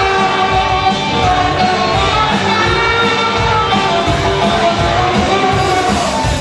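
Live band playing rock music over a steady drum beat, with singing.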